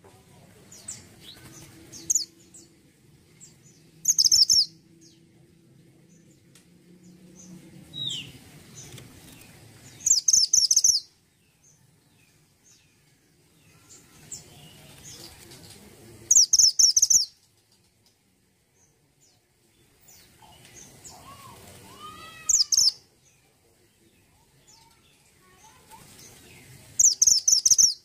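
Mantenan gunung (Sunda minivet) calling in short bursts of rapid, high chirps, repeated about every six seconds, with fainter chirps in between.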